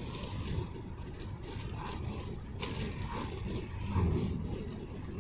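Road noise inside a moving car's cabin, a steady low rumble, with rustling and one sharp click about two and a half seconds in.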